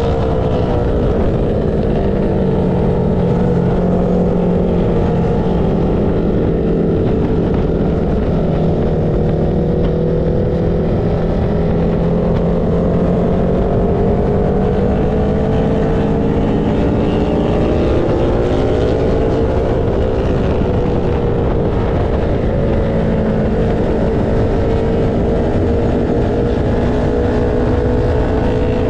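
Engine of a track-day vehicle running at speed on a race track, its pitch dropping early on and later climbing and easing again with throttle and gear changes, over a steady rush of wind noise.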